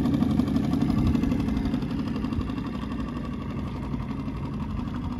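Small Mercury 3.5 hp outboard motor running steadily at trolling speed, pushing a canoe along, easing slightly in level after a second or so.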